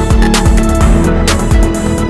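Electronic background music with a heavy, steady beat and deep bass.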